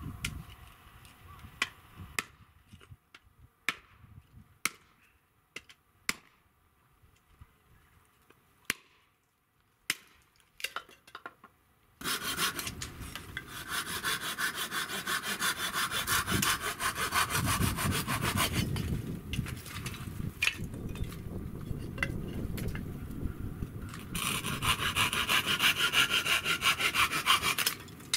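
Dry firewood being worked with a blade. First come scattered single sharp knocks of a hatchet striking kindling on a chopping stump. About halfway through, a knife takes over with fast, even scraping strokes, shaving curls off a stick to make feather sticks, with a short pause before a second run of strokes.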